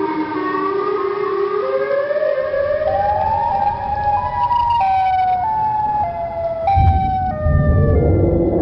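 Tornado warning siren winding up, its tone climbing in small steps for about four seconds and then stepping back down, with a low rumble underneath.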